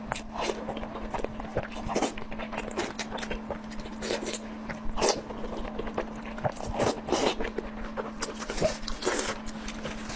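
Close-miked eating: irregular wet chewing, lip smacks and mouth clicks of uneven loudness, over a steady low hum.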